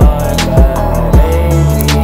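Hip-hop/R&B beat with no vocals: deep kick drums about twice a second, sharp snare hits and a sustained bass line under a melody. The bass note drops lower about halfway through.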